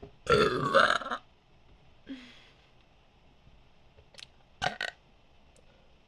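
A person burping deliberately: one loud, pitched burp lasting about a second, then a short low burp about two seconds in. Two quick, sharp sounds follow near five seconds in.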